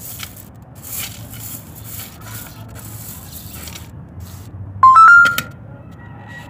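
Crushed gravel and charcoal potting mix crunching and scraping as hands press it around orchid roots in a clay pot. About five seconds in, a brief loud pitched tone steps up twice in pitch and stops after about half a second.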